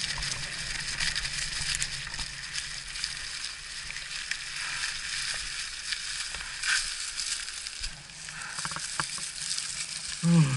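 Electric mountain bike riding over a loose, stony trail: tyres crunching and crackling on gravel, with scattered knocks and rattles and a low hum in the first seconds. A brief voiced sound near the end is the loudest moment.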